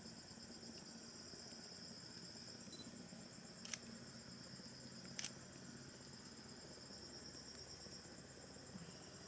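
Faint chorus of night insects, a steady pulsing high trill like crickets, with two sharp clicks about a second and a half apart a little before the middle.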